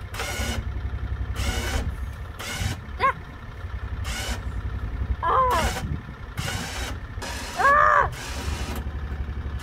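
Electric winch running with a steady low hum as it hauls a Great Day Power Loader lift upward under the weight of a child. A child's voice calls out three times over it, the loudest near the end.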